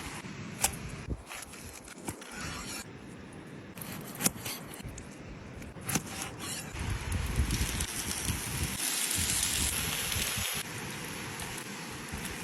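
Wood fire crackling with scattered sharp pops, and a steadier, louder hiss from about seven to ten and a half seconds in.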